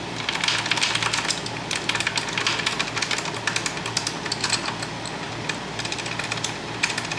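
Irregular light clicks and taps as the plastic frame latch assembly of a Lectric ebike is handled and worked to free a stuck inner pin, over a steady low hum.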